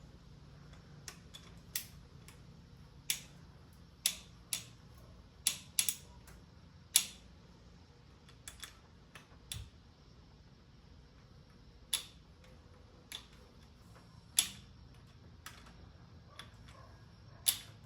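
Irregular sharp metallic clicks of hand tools, a wrench or torque wrench, working on bolts. There are about fifteen single clicks, some in quick pairs, spaced a second or more apart.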